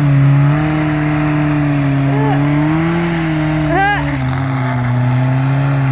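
Air-cooled Volkswagen flat-four engine droning steadily under load, its pitch shifting slightly a few times. A brief high chirp comes just before four seconds in.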